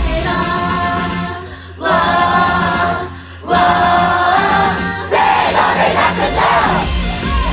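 Idol pop song performed live: female voices sing long held notes over the backing track, which cuts out briefly twice. From about five seconds in, the audience joins with shouted fan calls over the music.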